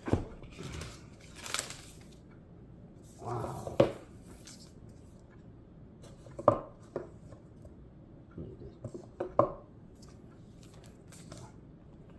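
Cardboard and packaging handling while an Apple iPad Pro box is opened: the lid is slid off and the tablet's plastic wrapping is dealt with, giving a series of short scrapes, rustles and light knocks with pauses between them.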